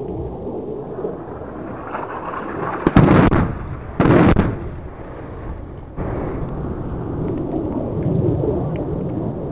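Two 500-pound JDAM bombs detonating, one set to burst on contact and one as an airburst: two heavy blasts about a second apart, a few seconds in, amid a long rumble.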